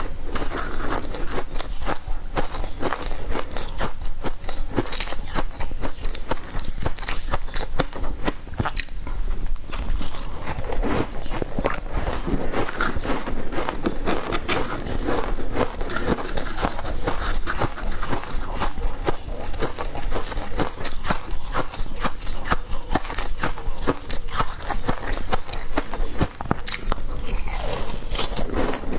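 Close-miked crunching and chewing of crushed ice, a dense, unbroken run of crisp cracks and crackles as mouthfuls of ice are bitten and chewed.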